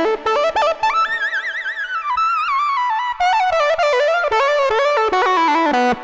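Yamaha Montage M8X synthesizer playing a guitar-like lead solo: a single-note line with vibrato that climbs quickly, then steps down in pitch and stops sharply at the end.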